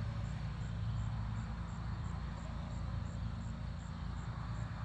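A steady low mechanical hum over a faint outdoor hiss.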